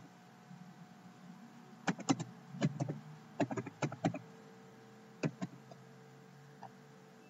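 Computer keyboard keystrokes typing a search term: quick runs of key clicks about two to four seconds in, a couple more a little after five seconds and one faint tap near the end, over a low steady hum.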